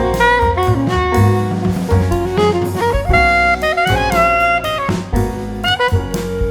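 Background jazz music with saxophone over a drum kit.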